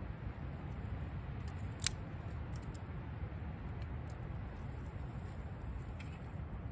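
Thin sticks of kindling being laid by hand onto a small flame in a metal fire dish, with one sharp click about two seconds in and a few faint ticks, over a steady low rumble.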